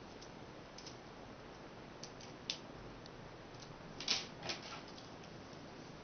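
Light metallic clicks and clinks from a steel chain handcuff being handled on a wrist: a few scattered ticks, with the loudest clinks in a quick pair about four seconds in.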